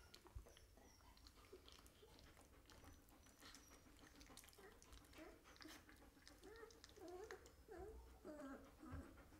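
Faint sounds of 17-day-old Belgian Malinois puppies mouthing and play-biting each other: soft wet clicks of mouths and jaws, with small squeaky grunts and whines that come more often in the second half.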